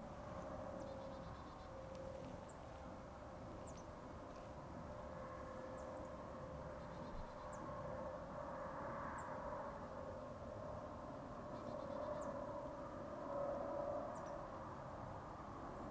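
Faint birdsong: a steady, wavering chorus of distant calling birds, with short, high chirps a few seconds apart.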